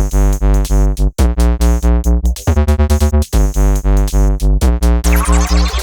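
Instrumental intro of an Arabic children's song: synthesizer keyboard chords over a drum-machine beat with a heavy bass pulse about four times a second, starting abruptly. Near the end a flurry of sweeping synth notes comes in over the beat.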